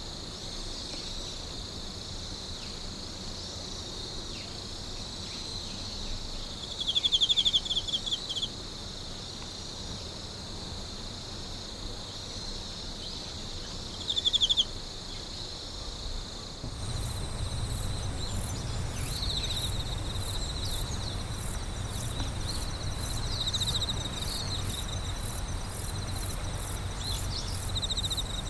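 Night chorus of crickets and other insects: a steady high trill throughout, with a louder nearby insect trilling briefly twice. About two-thirds of the way in, it changes to a denser, fast-pulsing chorus over a low background rumble.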